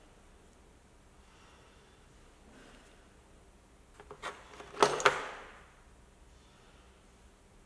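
Hands handling small accessories in a plastic tool case: faint rustling, then a few small clicks about four seconds in and two sharp clacks about a second later, followed by a short rustle.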